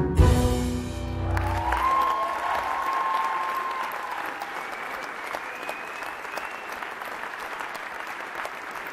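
A live band's final chord cuts off about a second and a half in, followed by steady audience applause with a couple of long high tones over it.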